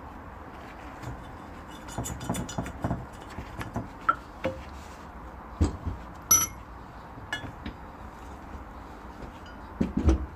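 Metal engine parts and tools clinking and knocking on a workbench as a cylinder head is dismantled: scattered sharp clinks, one ringing metallic clink about six seconds in, and a few duller thumps.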